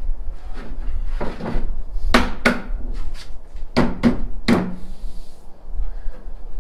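Sharp knocks on wood, five in all: a pair, another pair, then a single knock, each with a short ringing tail.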